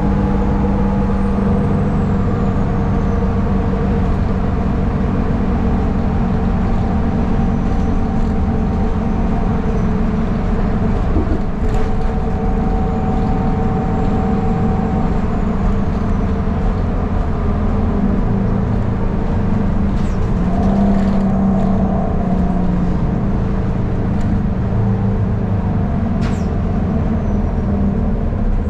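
City transit bus running, heard from inside: a steady engine drone with road noise, its tone shifting a little about twenty seconds in, with a few brief clicks or rattles.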